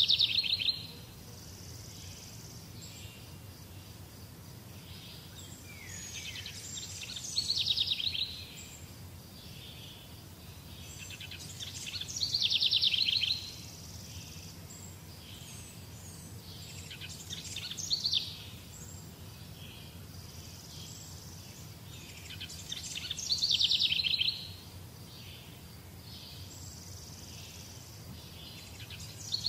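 A high, buzzy rattling bird call, each about a second and a half long, swelling and then cutting off, repeated roughly every five to six seconds over a steady low background hum.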